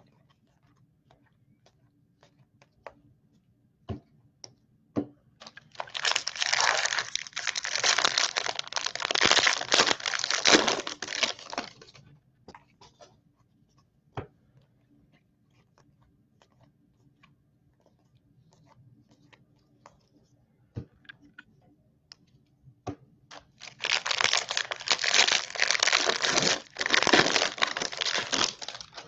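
Foil baseball card pack wrappers crinkling and tearing as packs are handled and opened, in two long stretches of about six seconds each, with scattered light clicks of cards being handled in between.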